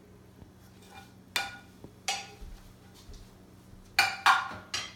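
A ceramic plate and a plastic ladle being handled and set down, making sharp knocks and clinks: one about a second and a half in and another at two seconds, then three in quick succession near the end.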